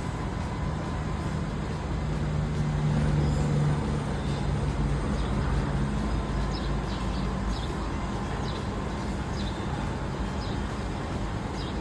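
Steady road-vehicle noise: a rumble with a low hum that grows louder for a few seconds near the start, and a few faint brief high squeaks later on.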